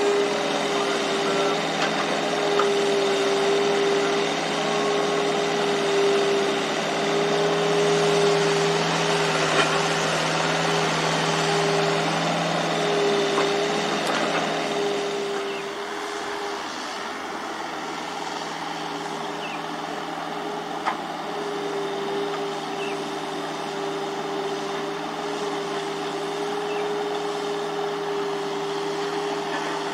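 Excavator diesel engines running under work, with a steady hum over the engine noise; the sound drops somewhat about halfway through, and there is a single sharp tick about two-thirds in.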